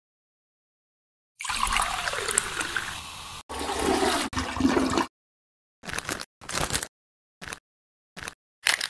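Toilet flushing, water rushing and gurgling down the bowl, starting about a second and a half in and cut off abruptly by edits near 3.5 and 5 seconds. Several short, separate noises follow.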